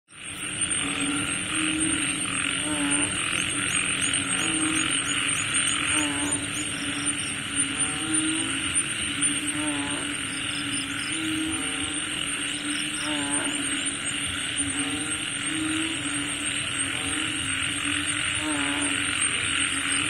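Night ambience after rain, fading in at the start: frogs calling with repeated low croaks, a higher call every few seconds, over a steady hiss and a thin high whine.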